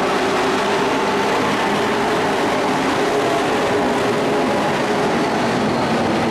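Engines of a pack of dirt-track race trucks running at racing speed, a steady dense drone with several engine tones overlapping.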